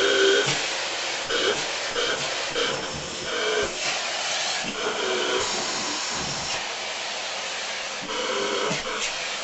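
Dyson upright vacuum cleaner running, its hose nozzle worked over a long-haired cat's fur. The suction makes a steady rush, and a whistling tone comes and goes every second or so.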